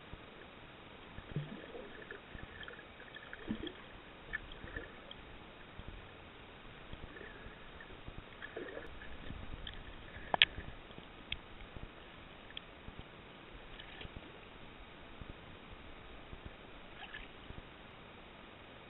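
Muffled water sounds from a camera in the sea: a faint even wash with scattered small clicks and knocks, and one sharp knock about ten seconds in.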